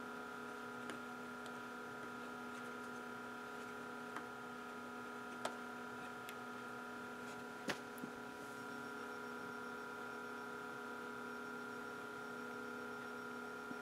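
Soft keys of an HP 54600A oscilloscope pressed firmly several times, each press a faint click, over a steady electrical hum. The worn key contacts need a hard push to register.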